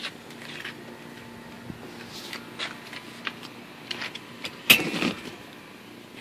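Small clicks and rustles of seat hardware being handled inside a pickup's cab, over a faint steady low hum, with one louder clunk a little under five seconds in as the front seatback is tipped forward.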